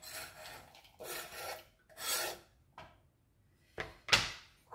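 Knife blade scraping chopped dark chocolate off a cutting board into a bowl: three scraping strokes in the first two and a half seconds, then a sharp knock near the end.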